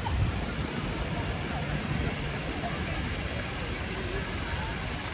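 City-centre ambience: a steady low rumble of urban noise with faint voices of passers-by.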